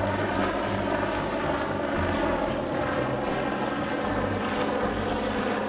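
Small helicopter in flight, its rotor and engine sound holding steady.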